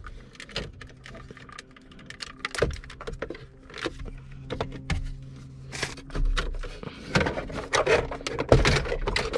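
Plastic center-console trim of a Toyota Prius being pried off and handled by hand: irregular clicks, snaps and rattles as the tight clips give and the panels are pulled free.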